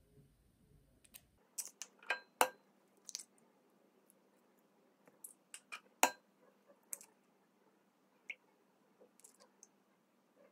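Irregular light clicks and taps, about a dozen of them, spread unevenly, the sharpest about six seconds in.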